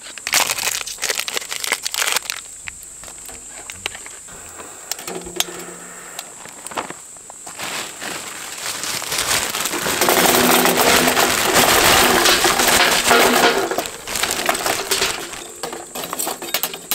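A folding metal charcoal starter being handled, with scattered clicks and clinks. A louder crunching, rustling stretch runs through the middle.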